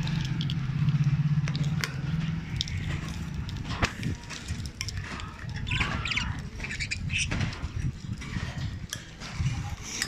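Budgerigars chirping and squawking in short, scattered calls over a low rumble, with a low hum during the first couple of seconds.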